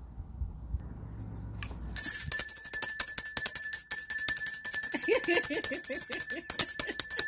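Small metal handbell shaken rapidly, its clapper striking many times a second under a steady high ringing. It starts about two seconds in, after a little handling noise.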